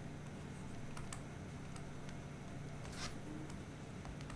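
A stylus tapping and scratching on a tablet screen as words are handwritten: a few sharp ticks and one longer scratchy stroke about three seconds in, over a steady low hum.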